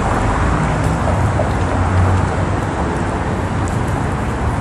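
Steady city street noise: a continuous low rumble and hiss with no separate events.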